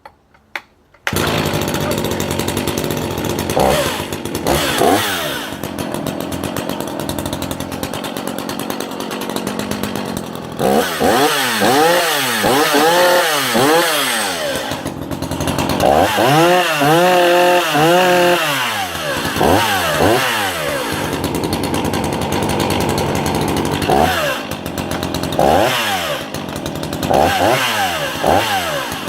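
Sachs Dolmar 133 chainsaw's 85 cc two-stroke engine restarting about a second in, then running loud and being revved several times: two long revs around the middle and quick throttle blips near the start and end, with the pitch rising and falling each time.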